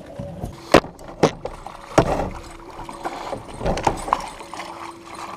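A hooked channel catfish thrashing and splashing at the surface as it is netted beside the boat. There are three sharp knocks in the first two seconds and rougher splashing around the middle and again about four seconds in.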